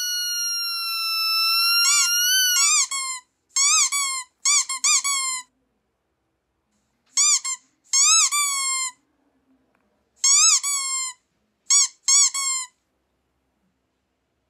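Squeaky toy squeaking, a sound meant to make a dog tilt its head. It opens with one long, high squeal of about two and a half seconds, then follows with groups of short squeaks that rise and fall in pitch, with silent gaps between the groups.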